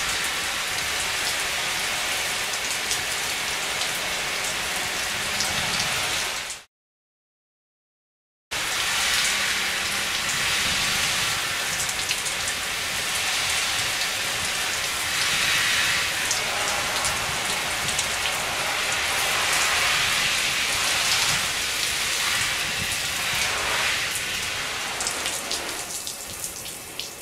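Water spraying from an overhead nozzle and pattering steadily like rain on the hood and shell of a Therm-a-Rest Honcho Poncho. The sound cuts out completely for nearly two seconds about seven seconds in, then resumes and grows quieter near the end.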